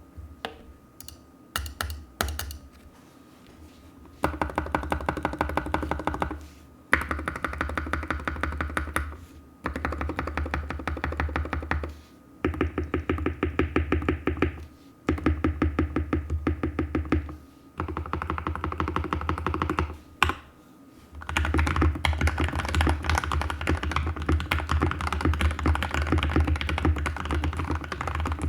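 Mechanical keyboard with lubed linear Gateron switches and greased stabilizers in an Anne Pro 2 case, typed on fast. A few single keystrokes at first, then rapid runs of clicks lasting a few seconds each with short pauses, and unbroken fast typing over the last seven seconds.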